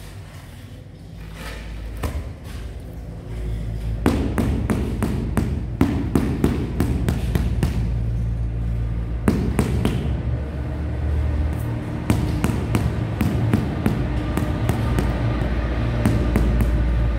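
Rubber mallet tapping a large ceramic floor tile down into its bed of mortar to level it: a run of quick dull knocks, several a second, starting about four seconds in.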